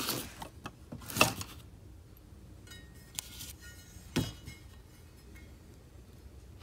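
Turbo parts being handled on a workbench: the polished compressor housing and center section knock and clink together in a few sharp metal clinks, the loudest about a second in and another about four seconds in.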